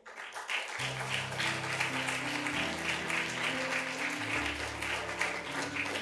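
Audience applauding, with instrumental music starting under it about a second in.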